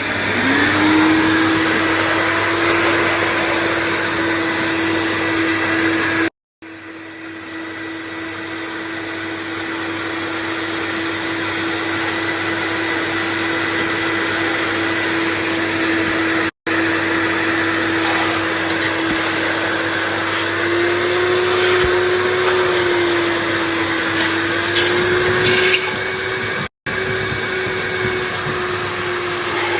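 Large three-motor wet/dry vacuum cleaner running with a steady whine while sucking water off the floor. The sound cuts out briefly three times, and after the first break it builds back up gradually.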